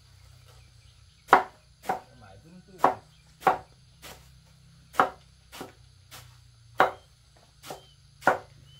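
A knife chopping on a cutting board: about a dozen sharp strokes at an uneven pace, starting a little over a second in, some much louder than others.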